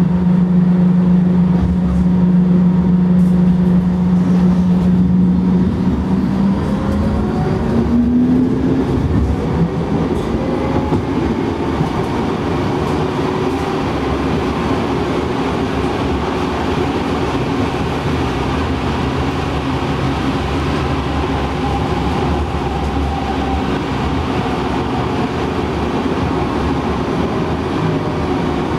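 London Tramlink tram running along the rails, heard from the driver's cab: a steady low motor hum that glides up in pitch about six to eight seconds in, over a continuous rumble of wheels on the track.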